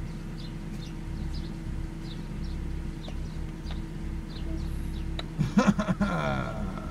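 A German shepherd gives a short grumbling vocal near the end, a quick run of low pulses sliding into a falling whine. Faint chirps and a steady low hum sit behind it.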